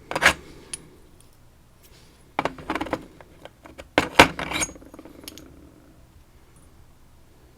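Small metal padlock parts clinking and rattling against a hard surface in three short bursts, as the lock is being taken apart.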